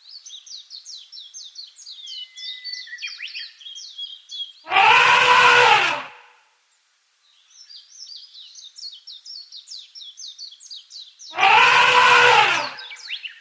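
An elephant trumpets twice, each call loud and about a second long, rising then falling in pitch. Between the calls, small birds chirp in rapid high notes.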